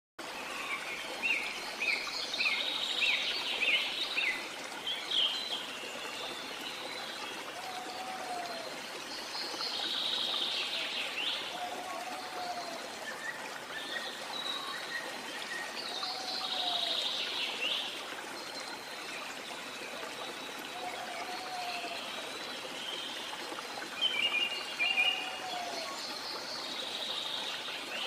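Forest ambience of birdsong over a steady hiss of running water. Several birds call between 2 and 5 kHz, with a rapid run of notes near the start, and a short, low arching call repeats about every four seconds.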